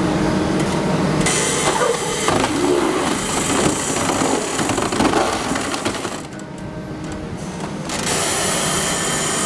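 Wood-processing machinery working on wood, a loud grinding and crunching noise that changes abruptly several times as different clips are cut together.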